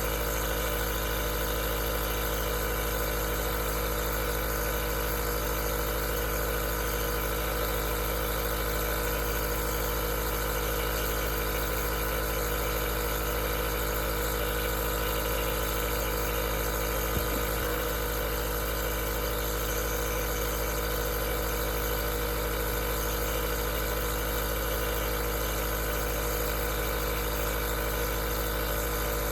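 Aerosol nebulizer running steadily: an even motor hum with a hiss of air over it, unchanging throughout.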